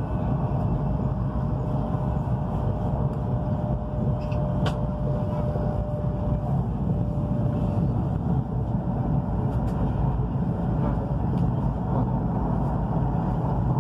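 Cabin noise inside a high-speed train slowing under braking from about 215 km/h: a steady low rumble, with a thin steady whine that dies away after about seven seconds.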